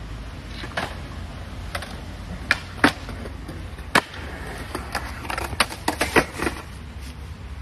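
Skateboard on smooth concrete: a low rolling rumble from the wheels under a string of sharp wooden clacks as the tail pops and the board lands, the loudest a few seconds in, with a quick run of clacks near the end.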